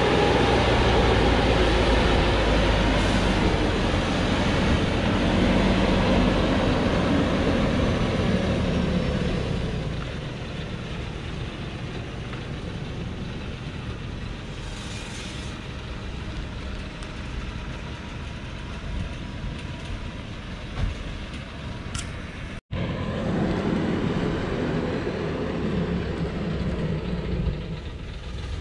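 Diesel engine of a truck heavily loaded with acacia logs, working slowly down a steep dirt track; its note rises and falls, loudest in the first third, softer through the middle, then swelling again. The audio cuts out for an instant about two-thirds of the way through.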